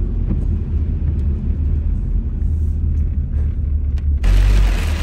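Steady low rumble of a car driving, heard from inside the cabin. About four seconds in the sound changes abruptly: a brief louder low surge, then a steady brighter hiss joins the rumble.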